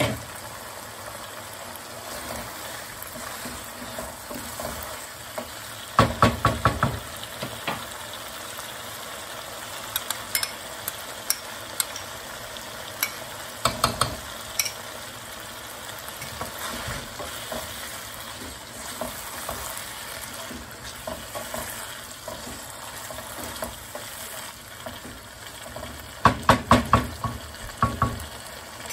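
Chicken karahi sizzling in a non-stick wok, with a spoon stirring and knocking against the pan. The knocks come in three quick runs of taps: about six seconds in, near the middle, and near the end.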